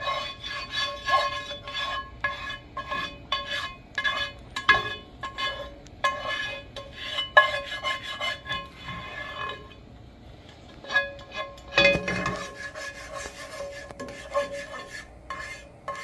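Plastic spatula scraping and knocking around the inside of a nonstick sauté pan as it spreads oil, stroke after stroke, the pan ringing with each stroke. The strokes ease off briefly about ten seconds in, then pick up again.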